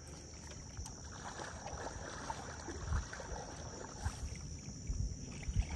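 Shallow water sloshing around wading legs, with scattered low thumps on the microphone.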